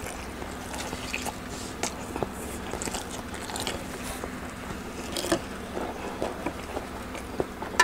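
Close-miked chewing of bakso (meatball soup), with many small wet clicks and smacks of the mouth and a sharper click about five seconds in.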